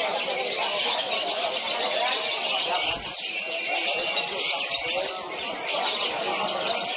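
Young lovebirds chattering in a long, rapid, shrill stream: the 'ngekek' song that is judged in lovebird contests. The chatter dips briefly about three seconds in and again about five seconds in.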